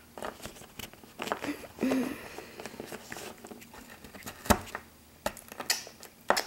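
Hard plastic toy figurine knocked and pressed into a crumbly flour-and-cookie mixture on a tabletop, giving scattered clicks, taps and crumbly crackling, with one sharper knock about four and a half seconds in.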